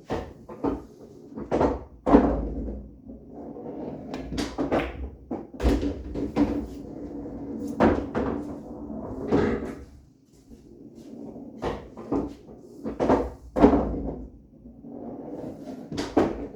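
Pool balls on a bar-box table clacking together and knocking against the rails and into the pockets as shots are played. The sharp clicks and knocks come irregularly, more than a dozen of them, with low rumbles of balls rolling in between.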